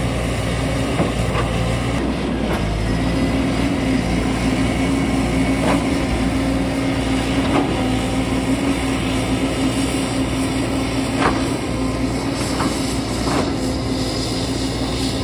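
JCB tracked excavator's diesel engine running steadily under load with a constant drone, while the bucket works the rocky slope; a few sharp knocks and clanks of rock and steel come through now and then.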